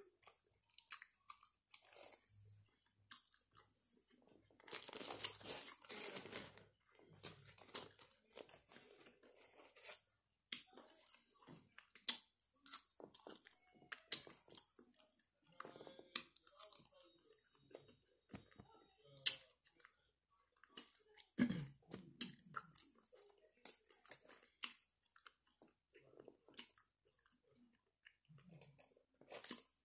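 A person chewing a mouthful of french fries close to the microphone: soft wet mouth clicks and crunching, irregular, with short quiet gaps between.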